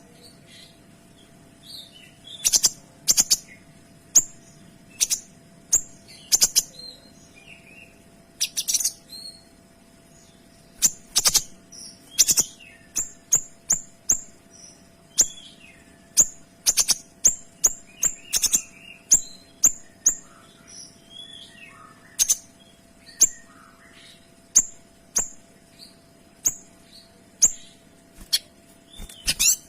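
A songbird known in Indonesian as a kinoy, singing repeatedly: short, sharp, high-pitched notes fired in quick clusters, some in rapid runs of a few notes a second, with a faint steady hum underneath.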